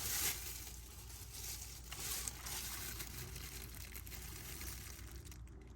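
Faint rustling and cutting sounds as a knife cuts the worm-damaged end off an ear of corn, with soft, slightly louder patches near the start and around two seconds in.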